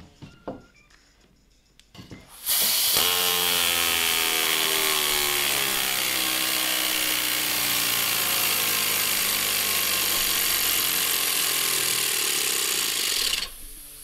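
3D-printed oscillating air engine running on compressed air from a bottle filled to 5 bar, starting about two and a half seconds in with a steady rush of air and a mechanical tone whose pitch falls steadily as the pressure drops and the engine slows. It stops abruptly shortly before the end, after a few light clicks at the start from the air tube being handled.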